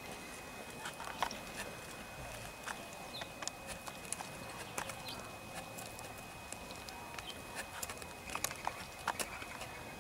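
Collared peccaries (javelina) rooting and feeding on rocky ground: scattered sharp clicks and knocks of hooves and loose stones, busiest about a second in and again near the end.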